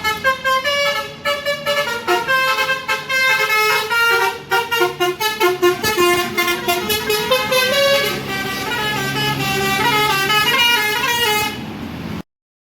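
Tour bus telolet horn, a multi-tone musical horn playing a fast melody of short notes. It cuts off suddenly near the end.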